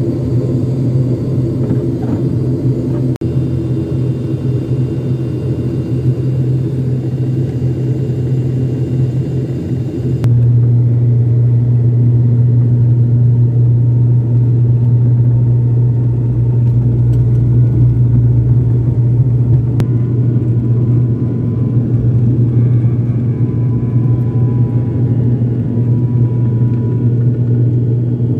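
Passenger airliner cabin noise: a loud, steady low engine drone with air hiss. About a third of the way in the hiss drops away and the drone gets a little louder.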